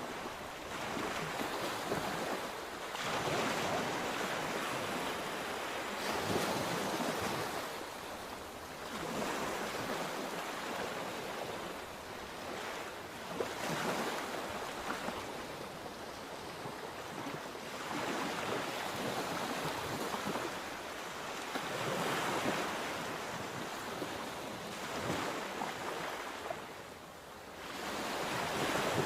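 Sea waves breaking and washing on the shore, the surf swelling and easing every few seconds, with some wind.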